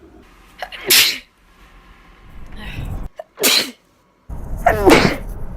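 Three sneezes: sharp bursts about a second in, about three and a half seconds in, and near the end, the last with a falling vocal pitch on its 'choo'.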